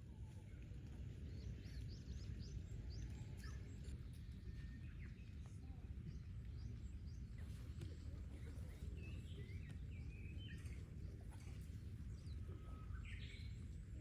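Birds chirping and calling: many short, high chirps, scattered and overlapping, over a steady low rumble.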